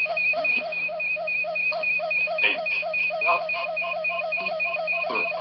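Ghost-box app (Echovox) sounding through a speaker dock: an even electronic pulsing of about four to five beats a second over a steady low hum, which the user calls static.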